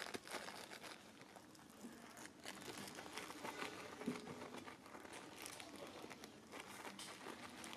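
Faint rustling and crackling with many scattered small clicks, irregular throughout.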